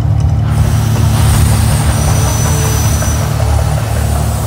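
Mirage volcano show erupting: a deep, steady rumble, with a loud rushing hiss joining about half a second in as the fire and water jets shoot up.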